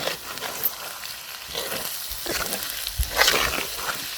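Fried onions with plums, barberries and pomegranate paste sizzling in oil in a pan on an open fire, stirred in several swishing, scraping strokes; the loudest stroke comes a little after three seconds in.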